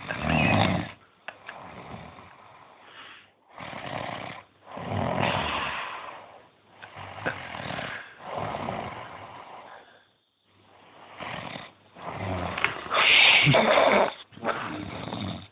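A person snoring loudly and heavily in a deep, drink-induced sleep, a rasping snore on nearly every breath, one to two seconds apart. The snoring stops for about half a second around ten seconds in, then comes back loudest near the end.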